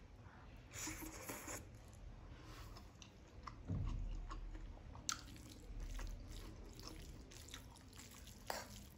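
Close-miked eating of cheese masala Maggi noodles: a slurp about a second in, then wet chewing, with a dull thump about four seconds in. A few light clicks of the fork on the plate come near the end.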